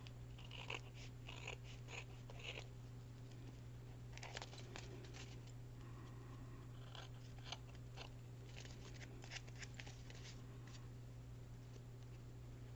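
Faint, scattered snips and paper rustles of scissors trimming envelope paper, over a steady low hum.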